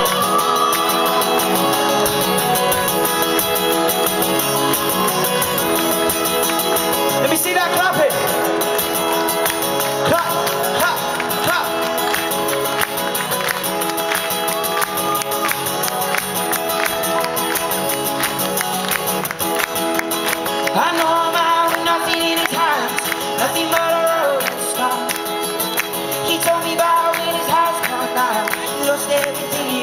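Live acoustic guitar strummed in a steady rhythm, with a crowd clapping along on the beat and a few voices rising over it.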